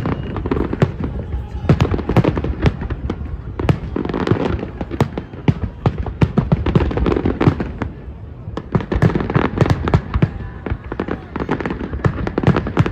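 New Year's fireworks: a dense, continuous barrage of bangs and crackles from many rockets and firecrackers going off at once, easing slightly about two-thirds of the way through.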